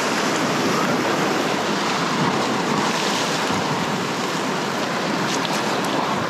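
Ocean surf breaking and washing over shoreline rocks, a steady rush of noise.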